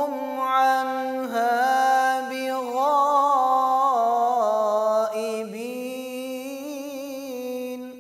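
A man's solo Quran recitation (tilawat) in the melodic style: long held notes that waver with ornamental turns, sung phrase by phrase, at a lower level in the last few seconds.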